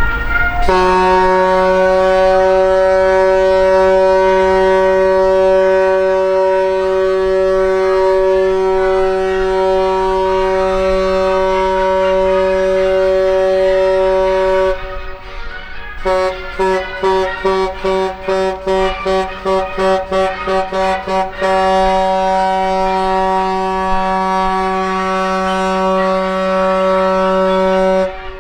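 Deep horn of the Project 302 river cruise ship Zosima Shashkov sounding a farewell signal for its final departure of the season: a long blast of about fourteen seconds, a rapid run of about a dozen short blasts, then another long blast of about six seconds.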